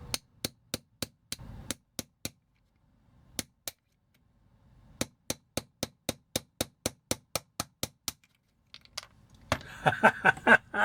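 Small hammer tapping a punch to drive a metal pin out of a vintage G1 Transformers toy. Sharp taps come in runs with pauses between, the longest run steady at about four taps a second; the sound grows louder and busier near the end.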